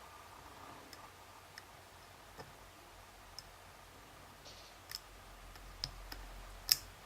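Faint, scattered clicks of a curved flag dimple pick working the pins of a Bricard Trial S dimple lock, a handful of light ticks a second or so apart, the sharpest near the end. The picker is feeling for a pin that is overset.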